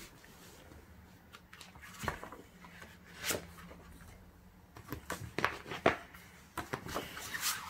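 A paper slipcover rubbing and sliding off a hardcover book, with scattered taps and paper rustles, the longest stretch of rustling near the end.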